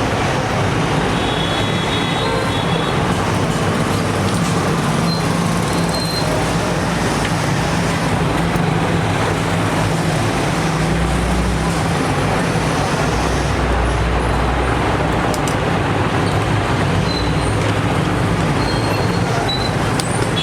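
Steady road traffic noise with a low engine hum, and a few faint short high-pitched tones near the start and end.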